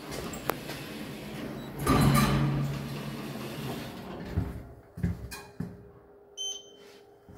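Lift car's touch keypad giving a short high beep as a floor number is pressed, near the end, after a few light clicks. The loudest sound is a thump and rumble about two seconds in.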